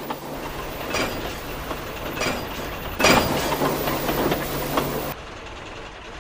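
Coal sound effect: a run of gritty crunching, rattling bursts of coal over a steady low hum, cutting off abruptly about five seconds in.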